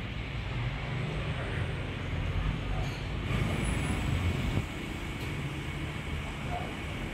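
Street ambience: a steady low rumble of road traffic that grows louder for a few seconds and drops back abruptly about four and a half seconds in.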